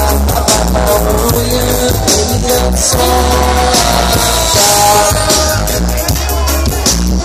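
Live reggae band playing loudly through a festival PA, with heavy bass, drums and held guitar and keyboard tones and no lead vocal.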